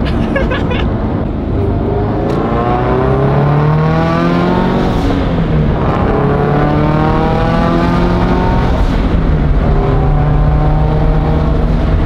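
Turbocharged Scion FR-S's 2.0-litre flat-four engine revving under load: its pitch climbs, falls away about five seconds in, climbs again, falls away near nine seconds, then holds steady.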